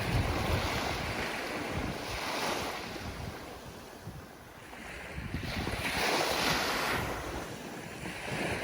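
Ocean waves breaking and washing in, surging and ebbing several times, with the biggest surge about six seconds in. Wind buffets the microphone with a low rumble near the start.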